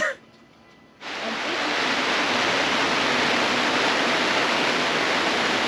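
Heavy rain shower: a steady, dense hiss of falling rain that starts abruptly about a second in.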